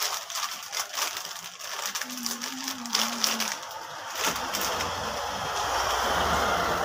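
Plastic packaging of sachet packets crinkling and crackling as it is handled. A brief hummed note comes about two seconds in, and from about four seconds a steadier rushing noise with a low rumble takes over.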